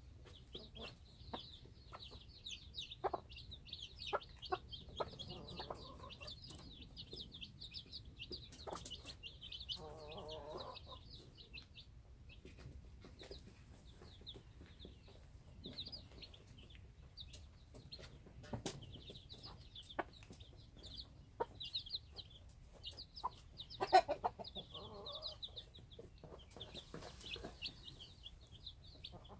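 A brood of Cheonggye chicks peeping almost continuously in rapid high cheeps, while the mother hen gives a few short bouts of low clucking. Scattered sharp taps of beaks pecking at the dirt sound over them, one louder tap about four-fifths of the way in.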